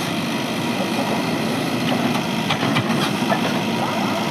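Heavy diesel engine of earth-moving machinery running steadily, with a few faint clanks about halfway through.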